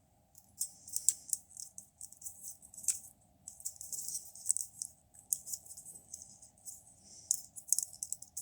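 Plastic parts and ratchet joints of a Transformers Kingdom Cheetor action figure clicking and rattling in the hands as it is handled and posed. The sound comes as uneven clusters of light clicks.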